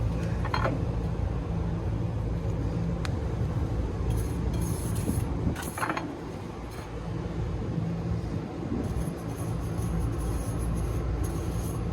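Steady low mechanical hum, with a few short brushing strokes as a brush cleans the smoke detector's dusty sampling tube.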